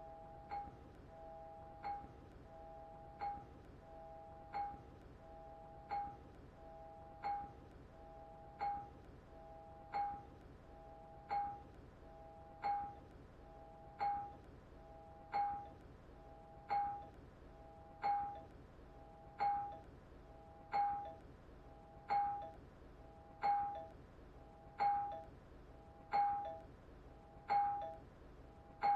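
Two-note ding-dong doorbell chime rung over and over, about once every 1.4 seconds. Each ring opens with a short click. The rings grow steadily louder.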